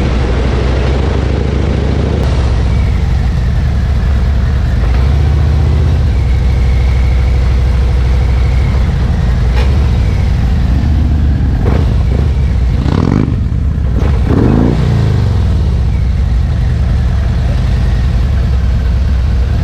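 Harley-Davidson Road King's V-twin engine running steadily while the motorcycle is ridden, with a short spell of louder, shifting noise about two-thirds of the way through.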